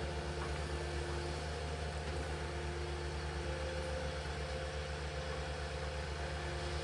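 Tracked excavator's diesel engine running steadily under load with a fast, even low throb, with a faint whine that comes and goes as the boom and bucket scrape down the soil slope.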